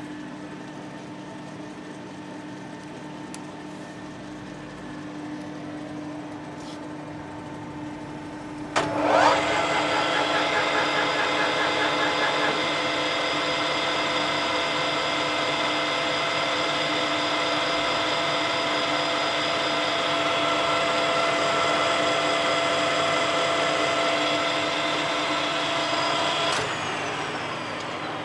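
Colchester Master 2500 lathe headstock gearing. A steady low hum gives way, about nine seconds in, to the spindle spinning up, its pitch rising into a loud steady whine of several tones at around 1300 RPM with the leadscrew engaged, with a fast rattle for the first few seconds. This is the headstock noise the owner is demonstrating. Near the end the drive is cut and the whine winds down, falling in pitch.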